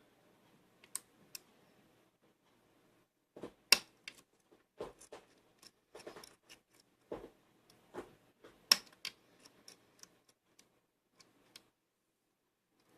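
Lock pick and tension wrench working the pins inside a challenge lock cylinder: scattered small metallic clicks and short scrapes, with two sharper clicks about 4 and 9 seconds in, as the pick works deeper into the lock each time.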